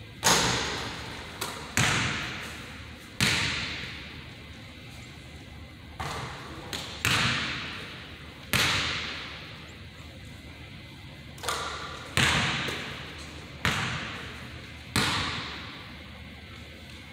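A basketball striking the rim and bouncing on a hardwood gym floor: about a dozen sharp thuds at irregular intervals, each echoing in the large hall.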